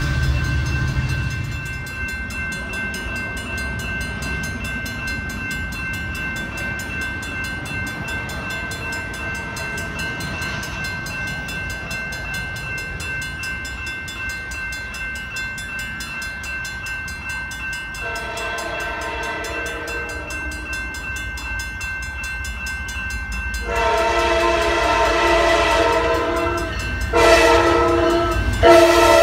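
A grade-crossing bell rings steadily. About two-thirds of the way through, an approaching Amtrak Pacific Surfliner diesel locomotive starts sounding its horn in long blasts. The blasts grow louder as it nears, with a short break just before the last one.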